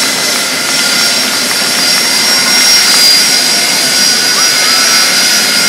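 Jet engines of the Boeing 747 Shuttle Carrier Aircraft running at close range: a steady rushing roar with a high turbine whine held on several even tones.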